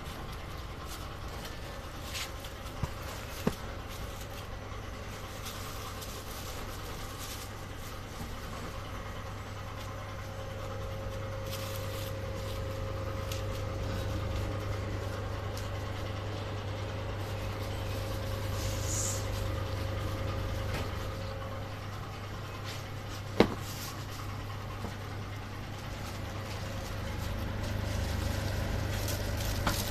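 Steady machine hum from packaging machinery, with a higher steady whine through the middle stretch and a few sharp knocks, the loudest about 23 seconds in.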